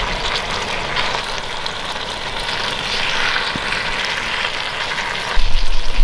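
Pork stir-fry frying in a small pan on a Soto gas camp stove: a steady sizzle mixed with the burner's hiss. A louder low rumble joins about five seconds in.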